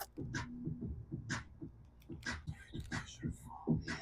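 Irregular soft clicks and crunches of someone eating and handling takeout fried chicken at close range.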